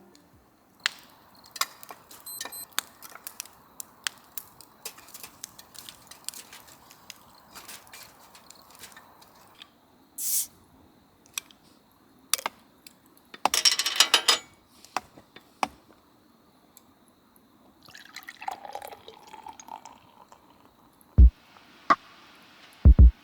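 Small clicks, taps and knocks of things being handled, mixed with dripping or liquid sounds. A dense cluster of clicks comes about fourteen seconds in, and a few heavy low thumps near the end.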